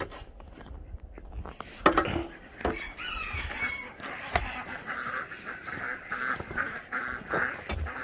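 Ducks quacking in a quick, steady run of calls about three a second through the second half, after footsteps in snow and a few sharp knocks in the first half.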